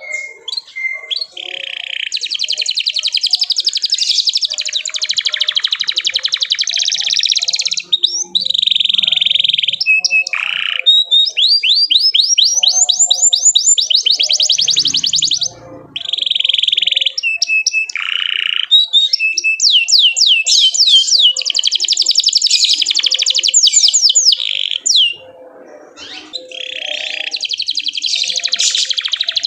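Domestic canary singing a long, vigorous song: rapid trills and rolls alternating with runs of fast repeated rising chirps, broken by two short pauses.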